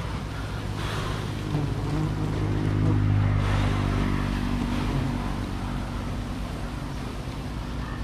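A motor engine humming steadily, growing louder for about three seconds and then slowly fading.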